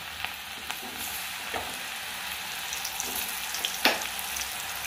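Button mushrooms frying in very hot oil in a kadai: a steady sizzling hiss with scattered small crackles, and one sharp tap about four seconds in.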